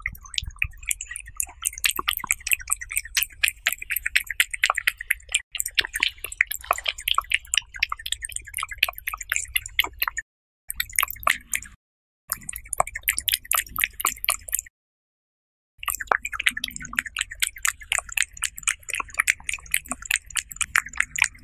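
A cat eating minced chicken and egg close to the microphone: quick wet smacking, licking and chewing clicks, broken three times by brief silences in the middle.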